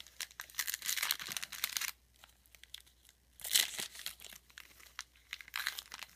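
A trading card pack's foil wrapper being torn open and crinkled in the hands, in crackly bursts: a long stretch in the first two seconds, a short sharp burst about halfway, and more crinkling near the end.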